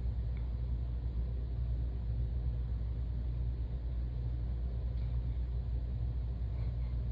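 A steady low rumble, with no distinct events standing out.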